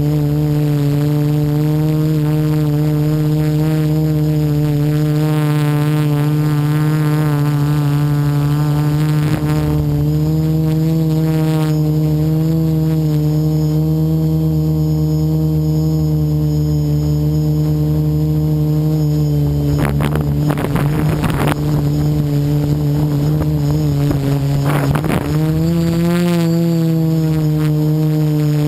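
Quadcopter's electric motors and propellers humming steadily, heard from a camera on the craft itself. About twenty seconds in, and again near twenty-five, noisy crackling bursts break in, and after that the pitch steps slightly higher.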